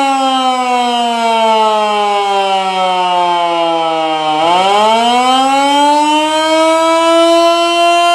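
1926 Federal Electric Model 2-240 rotating electric siren sounding an attack signal while running underpowered on 120 volts instead of its rated 240. Its pitch falls steadily for about four seconds as it winds down, then climbs quickly back up and holds steady near the end.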